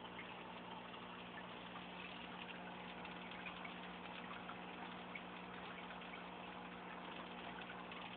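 Aquarium pump humming steadily, with water trickling and bubbling in the tank.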